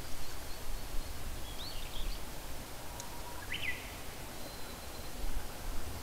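Wild birds giving a few short, separate calls, the clearest one a quick sweeping note about halfway through, over a steady low rumble of outdoor noise.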